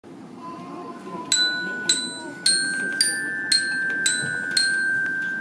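Bell-like tones struck seven times in a row, about two a second, each ringing on and overlapping the next, with the pitch stepping up slightly after the first two.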